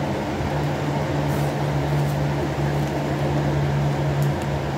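Electric fan running with a steady hum, a few faint clicks over it.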